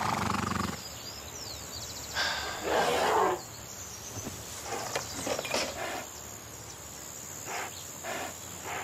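A downed horse groaning and breathing hard. There is a short pitched groan at the start, a longer rasping breath about two seconds in, then weaker short groans and breaths. It is the sound of a badly hurt animal in distress.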